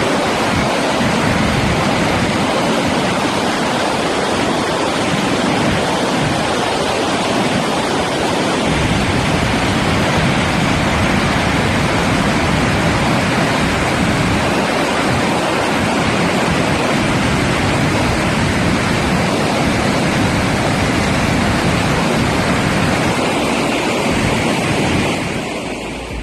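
Waterfall rushing: a steady, even roar of falling water that fades slightly near the end.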